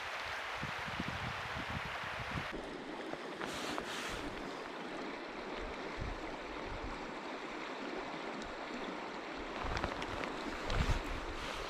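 Mountain river water rushing steadily, with gusts of wind buffeting the microphone in the first couple of seconds and again near the end.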